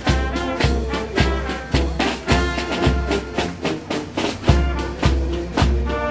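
Marching band playing: trumpets, clarinets, saxophones and tuba over a bass drum and snare drums keeping a steady beat of about two strokes a second. The bass drum drops out for about a second around the middle, then comes back.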